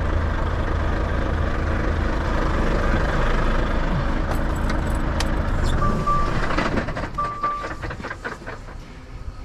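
Truck's diesel engine idling with a steady low hum that dies away about seven seconds in. Around then come a few sharp clicks and two short high beeps.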